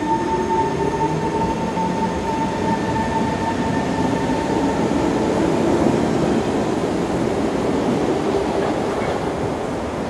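SMRT C751B metro train starting to pull away from the platform: its electric traction motors give a whine that rises in pitch over the first second or two, over the steady rumble of the cars. A steady high tone fades out a few seconds in.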